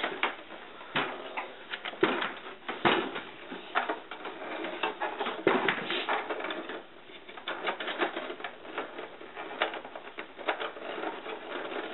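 Irregular clicks, knocks and light rattles from handling a 16mm film projector while it is packed away for storage, its cord and parts being stowed.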